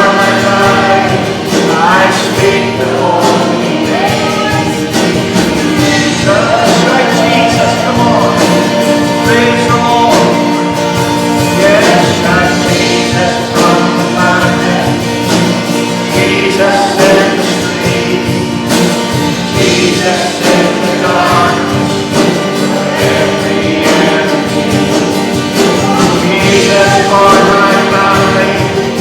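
Church worship singing: a group of voices singing a worship song together with instrumental accompaniment.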